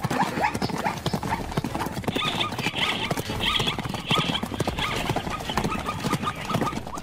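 Zebra hooves knocking and scuffing in quick, irregular beats as the zebra struggles under a lion's attack. Short, high calls repeat over the hoofbeats in the middle.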